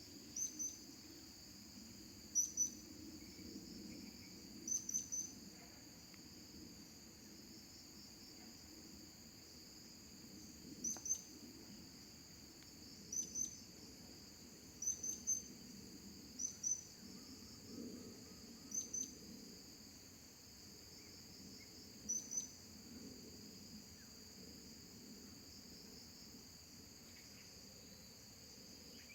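Blue-crowned hanging parrots (serindik) giving short, high, thin chirps in twos and threes every couple of seconds, over a steady high-pitched insect drone.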